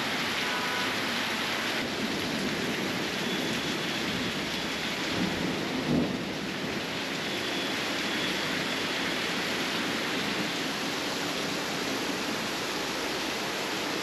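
Heavy rain pouring steadily onto roofs and a tiled balcony, with a brief low rumble about six seconds in.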